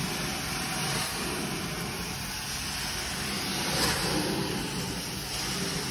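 Hot-water extraction carpet cleaner running, its vacuum drawing a steady rushing suction through the hose and the wand as the wand is worked over the carpet.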